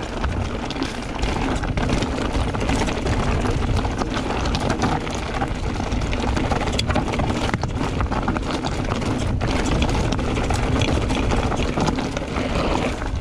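Mountain bike descending a steep, loose dirt trail at speed: tyres rolling and skidding over loose dirt and rocks, with frequent knocks and rattles from the bike over bumps. Steady wind rush on the camera microphone throughout.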